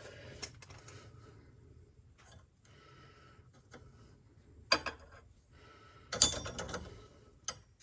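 Metal wrenches clinking and clattering as they are handled and sorted, a few separate clanks with the loudest, briefly ringing cluster about six seconds in.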